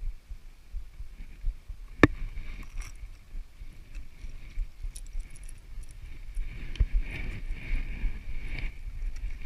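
Low rumbling and handling noise on a fishing kayak, with small scattered clicks and one sharp knock about two seconds in.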